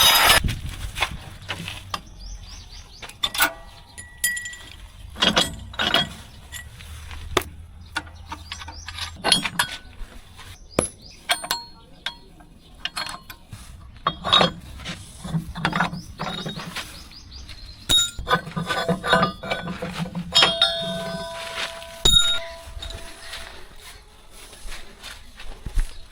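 Irregular sharp clinks and knocks, some with a brief ring, over a faint low hum.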